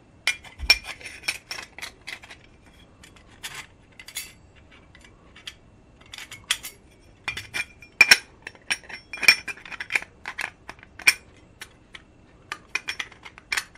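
Thin iron plates of a MULGOTO stove windscreen / lantern warmer clinking and scraping against each other as they are handled: irregular runs of light, sharp metallic clicks with a brief ring, busiest in the second half.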